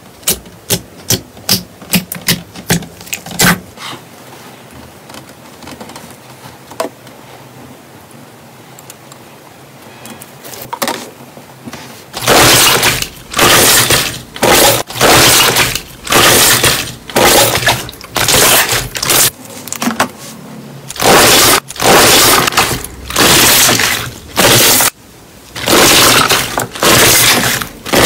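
Hands working slime: a quick run of sharp clicks and pops, a quieter stretch with only a few pops, then, from about halfway, a long series of loud noisy squeezes, about one a second.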